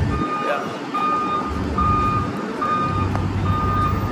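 Electronic warning beeper giving a steady run of short, even beeps at one pitch, a little over one per second, over the rumble of passing traffic.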